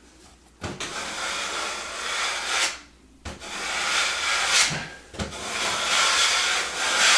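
Drywall taping knife scraping setting-type joint compound (Durabond) across a ceiling tape joint, in three long strokes that each begin with a click as the blade meets the surface, to bring the mud flush.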